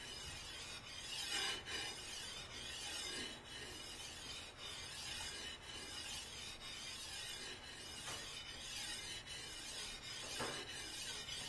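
Steel edge of a large Master Kuo G-5 3XL fish knife scraping over a wet 400-grit Chosera water stone in repeated rocking, U-shaped sharpening strokes: a quiet, steady rasping.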